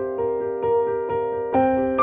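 Soft piano music: single notes struck roughly twice a second over a held low note, with a louder, fuller chord struck near the end.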